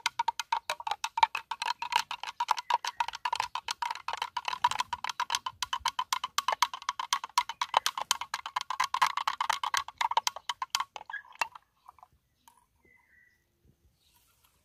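Plastic spoon stirring a liquid-filled glass jar, clicking against the glass about five or six times a second with a steady ringing tone, and stopping about eleven seconds in. The stirring is to dissolve powdered spray chemicals faster.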